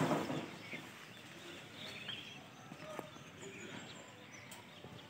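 Scattered faint bird chirps over low outdoor background noise, after a short loud rush of noise that dies away in the first moments; a single sharp click about three seconds in.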